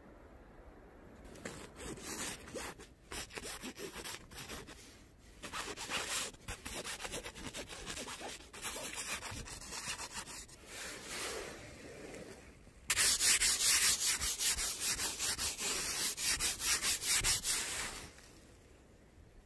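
Rapid repeated rubbing or scraping strokes, coming in spells at first and then loudest in one long run near the end before stopping.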